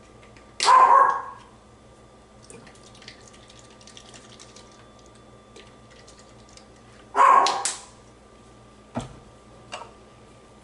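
A dog barking twice, about a second in and again near seven seconds in, the second a quick double bark, followed by two light knocks.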